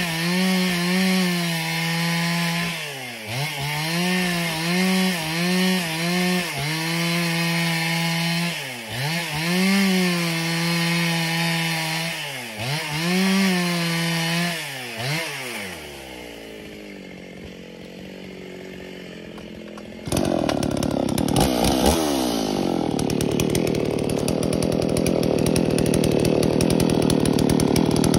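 Stihl 038-clone two-stroke chainsaw running at high revs while splitting tough, dry timber lengthwise, its pitch dipping and recovering every couple of seconds. It winds down about 15 seconds in, and a louder, rougher running sound starts abruptly about 20 seconds in.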